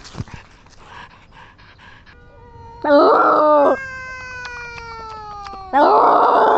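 Two loud, drawn-out animal cries, each just under a second long and about three seconds apart, with the pitch bending slightly downward. Long, slowly falling ringing tones sound between and under them.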